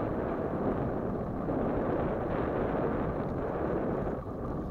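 Steady low rushing of wind buffeting the microphone of a camera moving along on a bicycle.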